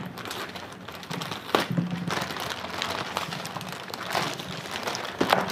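Plastic courier bag crinkling and rustling as hands tear and pull it open, with a few sharp crackles.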